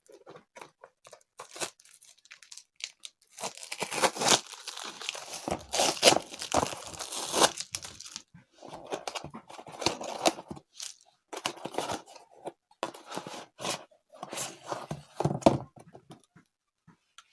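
A parcel's packaging being torn open by hand, with crinkling and crunching of the wrapping. The tearing comes in several spells, with scattered clicks and rustles between them.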